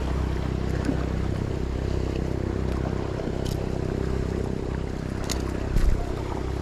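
A boat's motor running steadily with a low rumble, and a single low thump near the end.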